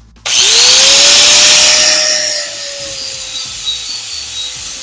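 Handheld grinder starting up and grinding a spot on the steel trailer frame down to bare metal for the ground wire. The motor's pitch rises quickly as it spins up, and the grinding hiss is loudest for about two seconds, then eases and runs on more lightly.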